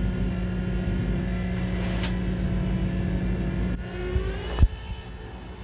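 A vehicle engine running with a steady hum that stops about four seconds in, with a sharp click about two seconds in and a thump shortly after the hum ends.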